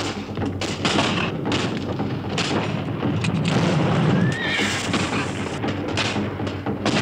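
Battle sounds of flintlock musket shots going off irregularly, with a horse whinnying briefly about four seconds in, the loudest moment.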